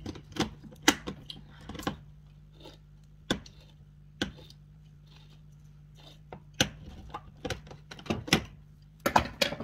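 Hand-held manual can opener cranking around the rim of a small tin can of tomato paste: irregular sharp clicks and clacks, a few at a time, with a quick cluster near the end.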